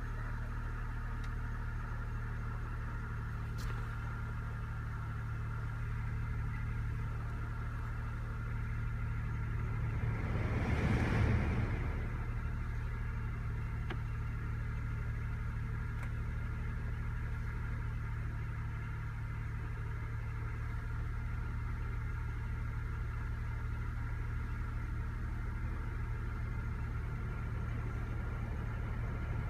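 Car idling with its air conditioning running: a steady low engine hum with a faint steady higher whine. About ten seconds in, a rush of air noise swells for a couple of seconds and then settles back.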